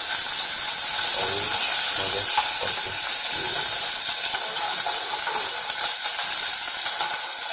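Bacon sizzling steadily in a frying pan.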